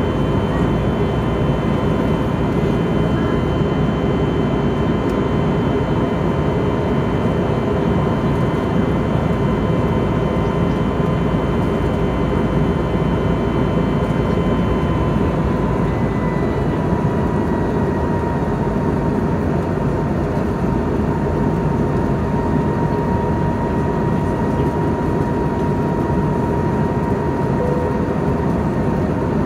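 Airbus A320neo turbofan engines and airflow heard from inside the cabin during the climb: a steady, loud rush with a thin high whine that steps slightly lower in pitch about halfway through.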